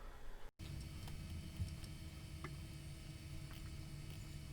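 Macintosh LC 475 running: a faint steady hum from the computer, starting just after a brief dropout about half a second in, with a few faint clicks.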